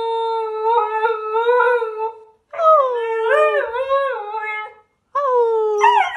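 Husky puppy howling: three long howls with short breaks between them, the middle one wavering up and down in pitch.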